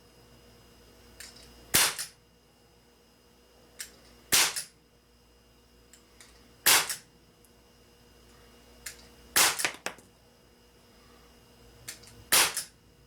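Crosman Vigilante CO2 pistol firing five shots, about two and a half seconds apart, each a sharp crack with a lighter click just before it.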